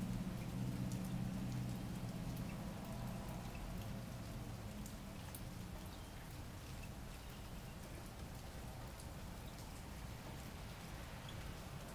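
Steady light rain falling, with scattered single drops clicking. A low hum fades away over the first few seconds.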